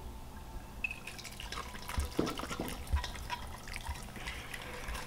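Hot soup pouring out of the narrow steel mouth of a Stanley vacuum bottle into a glass bowl: broth splashing and dripping, with a couple of soft thuds about two and three seconds in.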